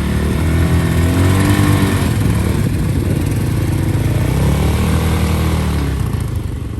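ATV engine running under load, revving up and down so its pitch rises and falls a few times, easing off near the end.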